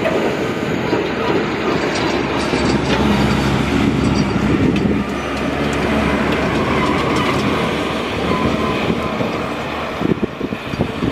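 Caterpillar 740 articulated dump truck driving past at close range: its diesel engine drones steadily under the rumble of its tyres and body. The sound is loudest a few seconds in as the truck passes, then fades as it moves away.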